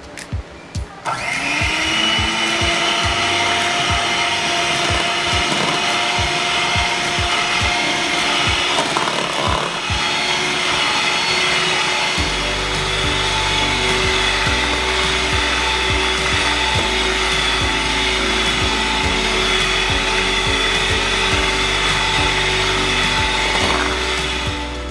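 A small electric kitchen appliance motor runs steadily, mixing the ice cream ingredients. It starts about a second in and stops near the end. Background music with a low beat plays under it.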